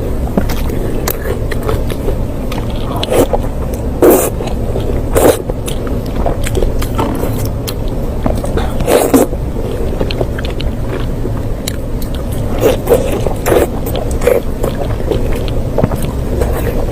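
Close-up eating sounds of someone biting into and chewing fatty meat, with irregular wet crunchy bites, the strongest about 4, 5 and 9 seconds in, over a steady low rumble.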